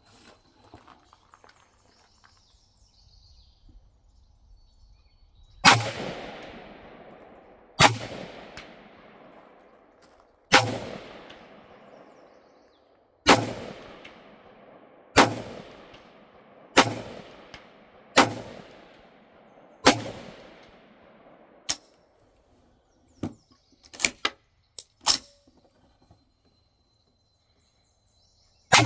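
Gunshots fired one at a time, eight in a row about two seconds apart, each followed by a long fading echo. They are followed by a few quieter, sharper cracks and another shot right at the end.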